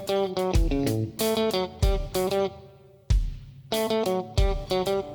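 Background music: a plucked guitar riff over a low drum beat that falls about once a second. The music fades out briefly a little past halfway, then starts again.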